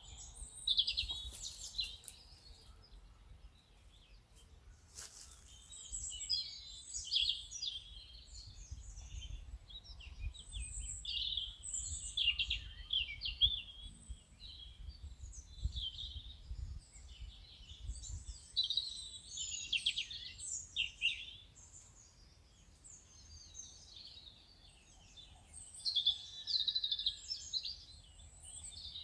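Wild birds chirping and singing, many short overlapping calls, over a low steady rumble of background noise.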